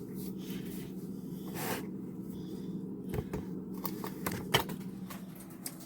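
Salad leaves rustling in a bowl in a few short bursts as the salad is handled and tossed, with light clicks, over a steady low hum.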